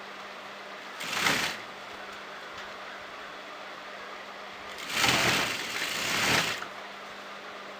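Sewing machine stitching a thin gold lace trim onto a neckline, in two runs: a short burst about a second in, then a longer run of about two seconds near the middle.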